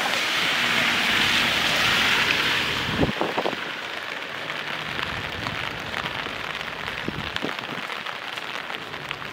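Rain falling and pattering on surfaces: a steady hiss with many small drop ticks. The hiss is heavier at first and eases about three seconds in.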